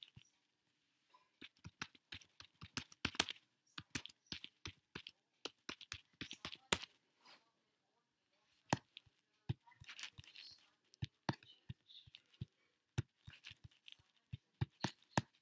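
Typing on a computer keyboard: quick, irregular runs of key clicks, with a pause of about a second near the middle.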